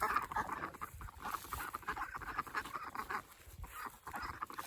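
A flock of young ducks quacking and chattering in quick, repeated calls, eager to be fed.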